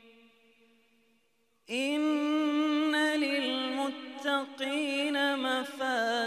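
A male reciter chants Quran recitation (tajwid) in a melodic style. A held note fades out, and after a pause of about a second and a half a new long phrase begins, with sustained notes and wavering, ornamented turns of pitch.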